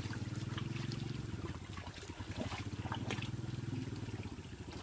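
Shallow muddy water splashing and sloshing as hands and legs move through it, over the steady, fast-pulsing low hum of a small engine running nearby.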